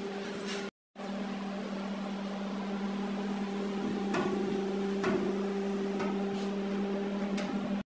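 Steady low machine hum with a few light metallic clicks as a sheet-metal oil pan is fitted against a six-cylinder diesel engine block. The sound cuts out briefly about a second in.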